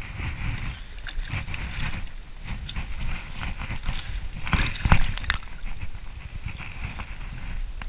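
Water splashing as a hooked carp thrashes at the surface while it is brought in, an irregular run of splashes and knocks, loudest about five seconds in.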